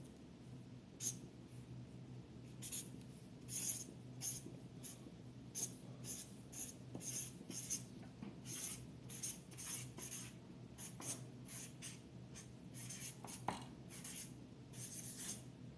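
Pen writing on paper: many short, irregular scratching strokes, with a faint steady hum beneath.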